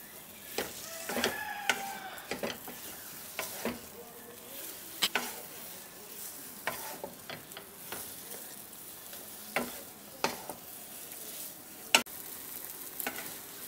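Wooden spatula scraping and knocking on a non-stick pan as a thick, dough-like semolina-and-egg halwa is stirred and pressed, at intervals, with one sharper knock near the end. A faint sizzle of hot ghee runs underneath; the halwa is cooked through and coming away from the pan.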